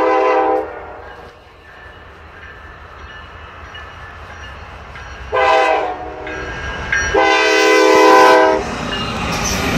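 Norfolk Southern diesel freight locomotive sounding its air horn for a grade crossing: a blast ending just after the start, a short blast about five seconds in, and a longer one about seven seconds in. Under the horn the engines' rumble grows louder near the end as the locomotives reach the crossing.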